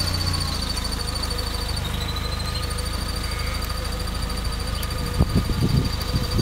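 Holden Gemini engine idling steadily, with a thin high whine over it and a few brief sounds near the end.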